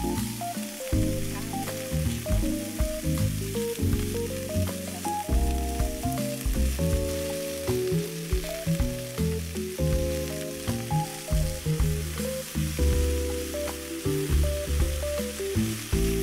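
Cabbage and vegetable stir-fry sizzling in a nonstick wok, with a spatula stirring near the end. Background music with held chords and a bass line plays over it.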